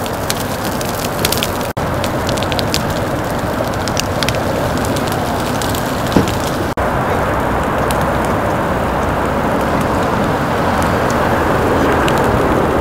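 Burning brush and a burning motorcycle crackling and popping over a steady rushing noise, with one sharper pop about six seconds in. The sound drops out for an instant twice, at cuts in the footage.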